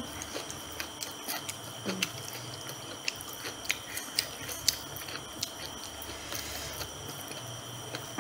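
Close-up eating of crispy fried chicken: scattered short crunches and wet chewing as the coated chicken is bitten and chewed, over a steady faint hum.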